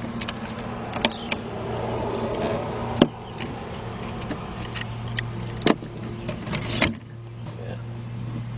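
A steady low hum with about five sharp clicks and knocks, the loudest about three seconds in, as small objects are handled.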